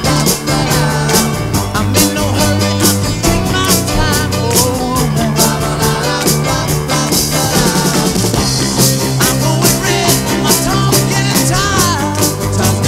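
Rock and roll band playing, with a steady drum beat, piano and electric guitars under a male lead vocal.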